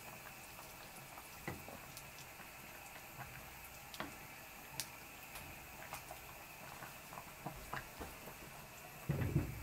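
A pot of pork belly and hard-boiled eggs in caramel and coconut-juice braising liquid simmering, with scattered small bubbling pops, as a wooden spatula stirs through it. A short low thump near the end.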